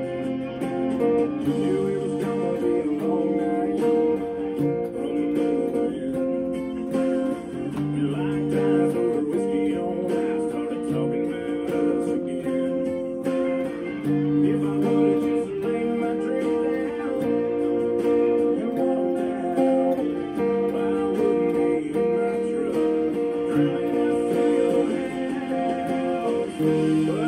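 Electric guitar, a Les Paul-style Epiphone, playing a country-rock song along with a full band recording that has singing in it.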